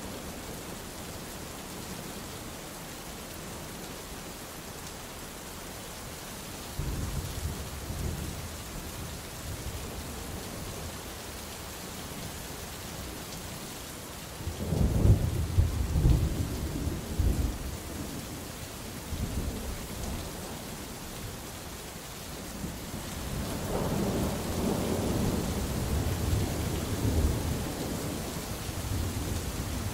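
Steady rain with thunder rolling several times: a low rumble about a quarter of the way in, a louder crackling peal about halfway, and a long rolling rumble through the last quarter.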